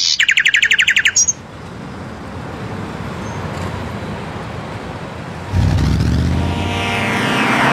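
Cartoon sound effects: a bird's fast chirping trill, about a dozen quick chirps in just over a second. Then faint steady street background noise, and about five and a half seconds in a car engine comes in loudly, running.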